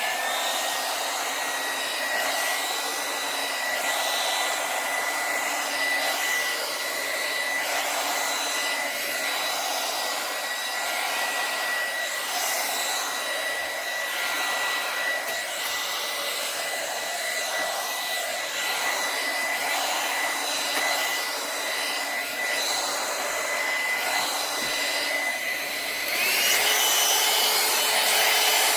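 YAPOY hot air brush (hairdryer brush) running: a steady rush of air with a high motor whine that rises as it spins up at the start. About 26 seconds in it gets louder and the whine steps higher as it goes up a speed setting.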